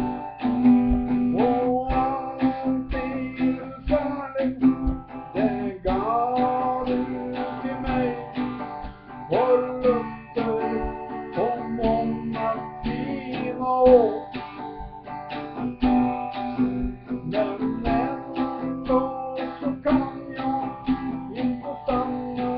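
Acoustic guitar strummed in a steady rhythm, with a man's voice carrying the melody over it in long rising and falling phrases.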